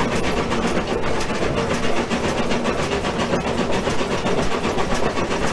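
An 1889 Porter wood-fired steam locomotive working hard up a steep grade, heard from its cab: a steady mix of steam exhaust from the cylinders and wheel-on-rail clatter.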